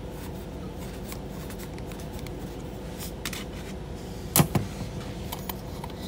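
Screw being backed out of a steel junction box cover with a hex driver, with light metal clicks and one louder metallic clack about four seconds in as the cover is handled, over a steady low hum.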